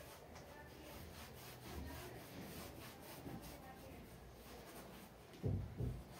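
Paint being rubbed onto canvas in quick repeated strokes, with two dull thumps near the end.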